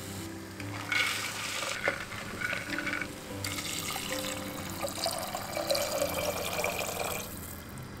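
Black-eyed peas tipped into a terracotta pot, rattling for about two seconds, then a stream of water poured in and filling the pot for about four seconds. Soft background music plays underneath.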